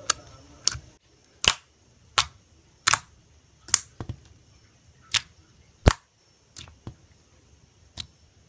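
Clear slime being pressed and poked by hand, giving about a dozen sharp popping clicks at uneven intervals as trapped air bursts.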